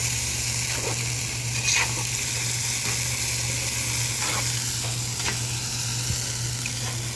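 Zirvak, the lamb and vegetable broth of plov, boiling in a kazan over a wood fire, stirred with a long-handled skimmer that scrapes against the pot a few times. This is the salted broth stage, just before the rice goes in.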